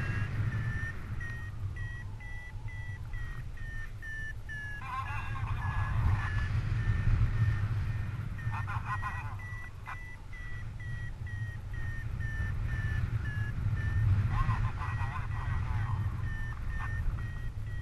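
Paragliding variometer beeping about twice a second, a high tone whose pitch drifts up and down slightly: the sign that the glider is climbing in lift. Steady wind rumble on the microphone underneath.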